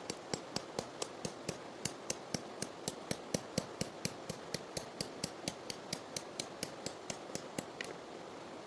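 A steady run of sharp knocks, about four a second, that stops near the end, over the constant rush of a river.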